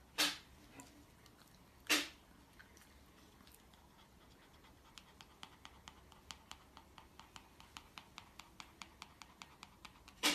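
A pet animal close to the microphone, making two short breathy puffs, then a run of soft quick clicks about four a second.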